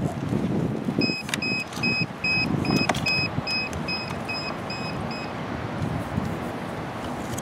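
Quadcopter drone giving a run of about eleven short, evenly spaced electronic beeps, roughly two and a half a second, as it is switched on for flight, with a couple of sharp clicks among them. Wind rumbles on the microphone throughout.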